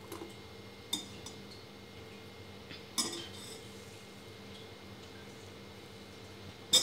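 A stainless steel spoon clinking against a steel pot, four short clinks in all: a sharp one about three seconds in and the loudest near the end.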